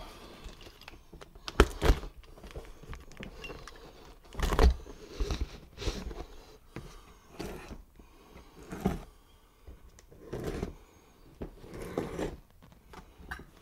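Packing on a large cardboard shipping box being cut and pulled off by hand: irregular scrapes, rustles and knocks against the cardboard, with heavier thumps about 2 and 4.5 seconds in.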